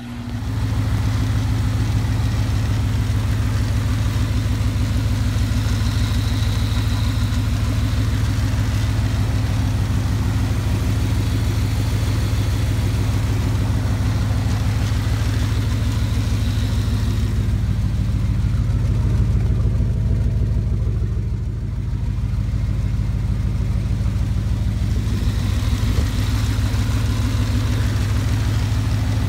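1995 Dodge Ram 1500's engine idling steadily, heard up close in the engine bay.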